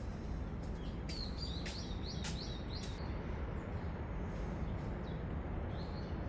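Small birds chirping, a quick run of short high chirps about a second in and a few fainter ones near the end, over a steady low background rumble.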